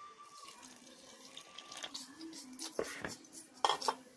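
Frothy activated yeast mixture poured from a small steel bowl onto flour, with a run of clinks and scrapes of the metal bowl against the mixing bowl; the clinks grow more frequent and are loudest about three and a half seconds in.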